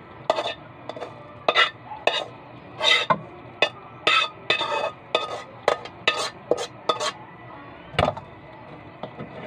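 Ladle scraping and knocking against a pan as fried rice is scooped out into a bowl, in a dozen or so irregular strokes, with a heavier knock about eight seconds in.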